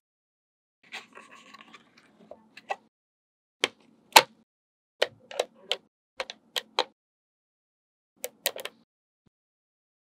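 Small magnet balls clicking as they snap onto a magnet-ball structure: a soft rustle of handling near the start, then about ten sharp clicks, some in quick pairs.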